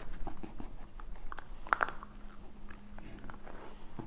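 Someone biting and chewing crunchy food close to the microphone: a run of small irregular clicks and crackles, with a brief louder crunch a little under two seconds in. A faint low hum sounds through the second half.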